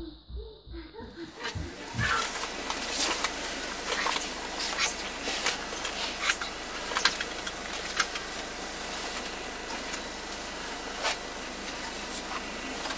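About two seconds of music with a thumping beat, which cuts off and gives way to the cabin noise of a bus: a steady rumble with frequent small rattles and knocks.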